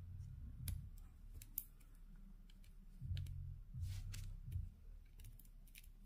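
Faint, scattered small clicks of tweezers picking up and pressing square resin diamond-painting drills onto the canvas, with a soft low rumble of handling about three and four seconds in.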